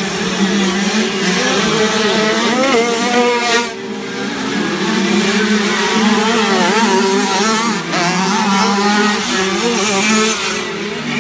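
Several 50cc two-stroke motocross bikes racing, their engines revving up and down. The loudness dips briefly about four seconds in and again near eight seconds, where the throttles shut.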